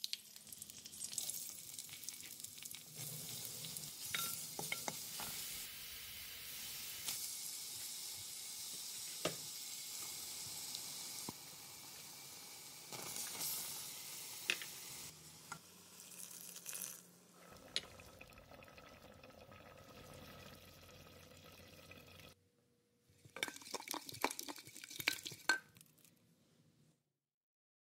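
Oil sizzling in a clay pot as cumin seeds fry, with clicks of a spoon stirring. The sizzle gives way after about eleven seconds to quieter cooking sounds. Near the end comes a short burst of knocking and scraping as the cooked ridge gourd is mashed in the pot.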